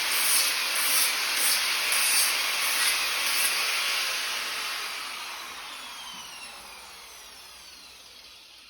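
Angle grinder working steel, the noise surging about twice a second. After about three and a half seconds it is switched off and winds down, its whine falling in pitch and fading as the disc slows.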